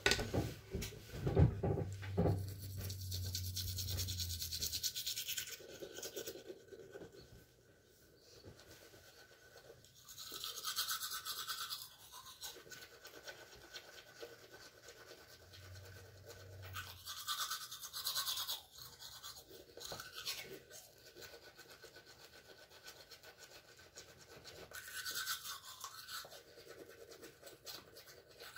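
Manual toothbrush scrubbing teeth in spells of a second or two, with pauses between. A few knocks and a low hum in the first few seconds.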